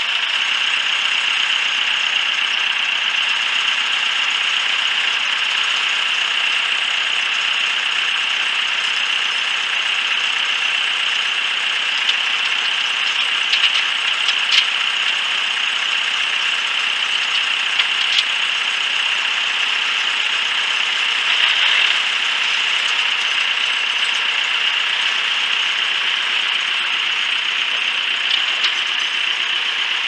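Farm tractor engine running steadily at low speed while its front-end loader is worked, with a few light knocks about halfway through.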